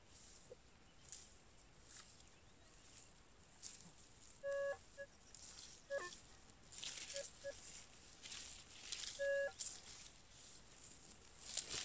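Metal detector giving a handful of short beeping target tones, one held a little longer, over the rustle of grass and steps as the coil is swept through thick vegetation.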